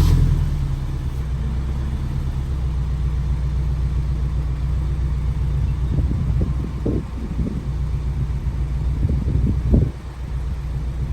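Honda S2000's four-cylinder engine idling steadily through a full-titanium Ballade Sports dual-exit cat-back exhaust, heard about two feet from the tailpipes.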